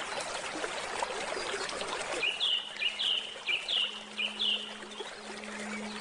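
Steady trickling water of a stream, with a bird repeating a short call four times in quick succession about two seconds in. A low steady hum enters faintly underneath and grows a little near the end.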